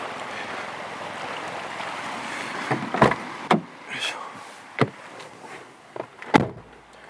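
Suzuki Jimny JB64's driver's door opened with a few clunks as someone climbs into the seat, then slammed shut about six seconds in, which cuts off the steady outdoor rushing noise.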